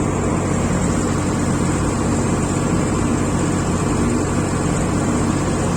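Diesel engine of a heavy machine, a tractor or backhoe loader, running steadily at a constant speed with no revving.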